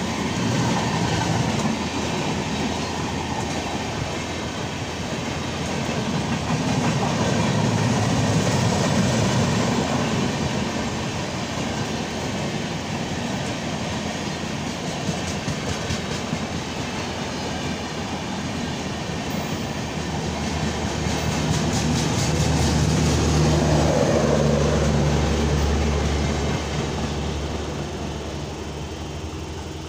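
An Indian Railways express train passing on the adjacent track, its coaches' wheels clattering over the rail joints. It is heard from a standing train. The sound swells twice and fades near the end as the last van passes.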